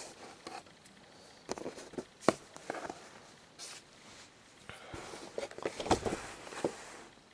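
A cardboard action-figure box with a plastic window being handled and turned over in the hands: scattered taps and knocks with rustling, one sharper tap a little over two seconds in, and a busier run of handling in the last few seconds that stops just before the end.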